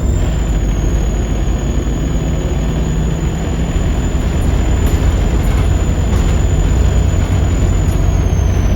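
Volvo D7C 7.3-litre diesel engine of a Volvo B7RLE bus running with a steady low rumble, over which a thin, high turbo whistle holds steady and then falls in pitch near the end.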